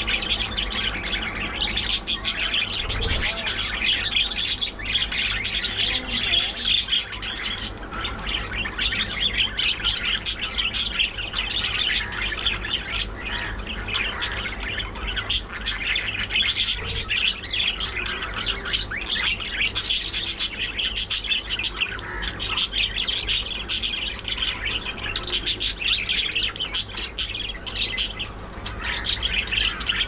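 A colony of budgerigars chattering and chirping continuously, many birds calling over one another in a dense, busy mix of short chirps and squawks.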